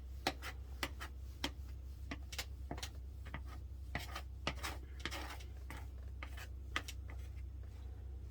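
An applicator scraping and rubbing as a sealer coat is spread across a wooden floor: irregular short strokes and ticks over a steady low hum.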